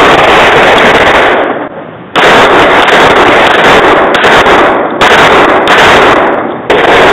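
Rapid handgun fire so loud that the recording is overloaded into near-continuous distorted crackle, in several stretches that stop and restart abruptly.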